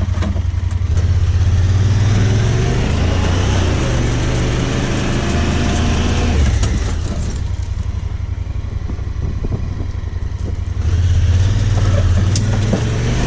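Honda Pioneer side-by-side's engine running as it drives. The engine picks up about a second in, eases off past the middle and picks up again near the end.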